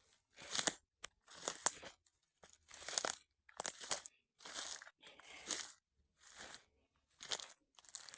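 Footsteps crunching through dry forest-floor undergrowth, one step about every second, each a rustling crunch of twigs and dry litter underfoot.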